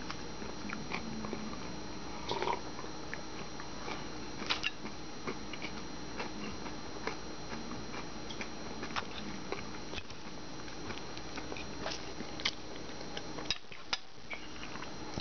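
Someone eating: chewing, with scattered light clicks and taps of a fork on a plate, over a steady faint hum.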